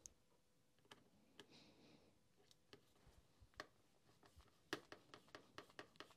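Faint, scattered clicks of a hand screwdriver turning screws into a plastic heat-gun housing, coming in a quicker run of small ticks over the last second and a half.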